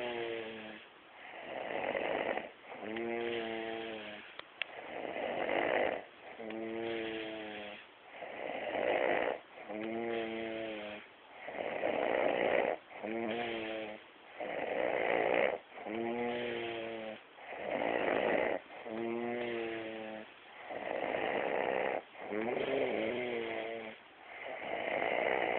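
A man snoring in his sleep: a buzzing, pitched snore on each breath in alternates with a breathy rush of air out, about every two seconds.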